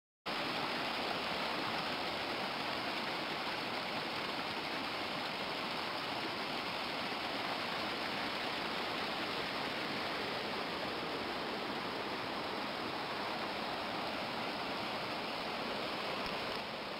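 Steady rush of a rocky creek running over boulders, cutting in abruptly just after the start.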